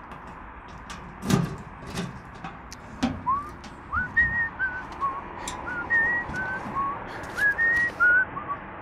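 A man whistling a tune of short notes, many with quick upward slides. It starts about three seconds in, after a few knocks and clatters from a metal mailbox being opened and letters being handled.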